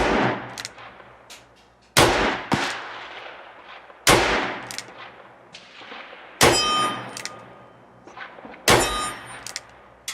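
Five shots from a Smith & Wesson Airlite .357 revolver, about two seconds apart, each a sharp crack with a decaying echo. The last two are followed by the ringing clang of a steel target being hit.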